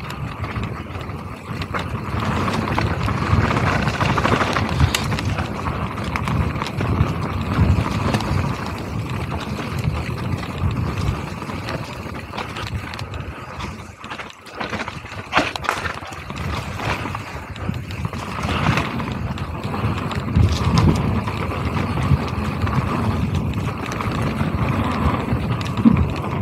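Mountain bike descending a dirt singletrack: knobby tyres rolling over packed dirt and dry leaves, the bike knocking and rattling over bumps and roots, with wind noise on the camera microphone. There is a brief lull about halfway, then a few sharp clicks.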